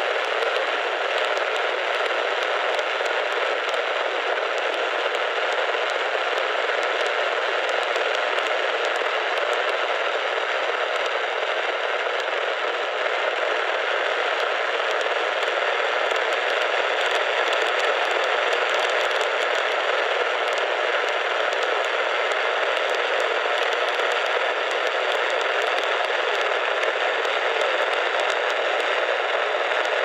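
Steady static hiss from a Midland emergency radio's speaker tuned to AM 1020, with the station's signal too weak to be heard through the noise.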